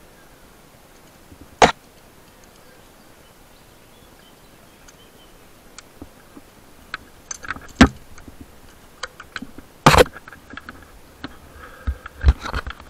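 Clinks and knocks of climbing gear being handled: one sharp knock about two seconds in, then a run of clicks and knocks, the loudest about eight and ten seconds in and again near the end.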